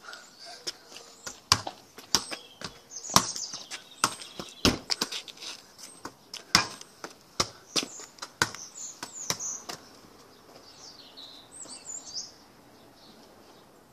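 A football being kicked and bounced, a string of sharp knocks and taps that thin out after about nine seconds, with birds chirping in the background.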